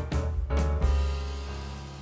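Instrumental background music: a few beats of chords over drum hits, ending about a second in on a held low chord that slowly fades.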